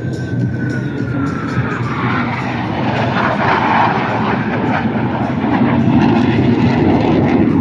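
Blue Angels F/A-18 jets flying past: a jet whine drops in pitch over the first two seconds as one passes, then the engine roar builds and grows louder.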